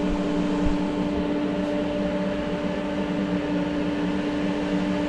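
Parweld XTM 211Di inverter welder switched on and idling, giving a steady hum of a few fixed tones over a constant hiss from its cooling fan.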